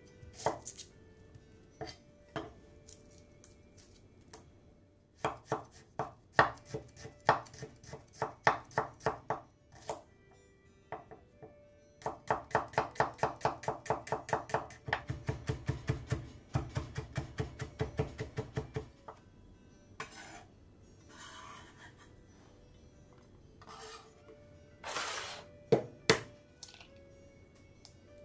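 Kitchen knife chopping Thai red shallots on a bamboo cutting board: a few scattered cuts, then steady rows of chops, fastest at about four a second through the middle, and a few louder knocks near the end.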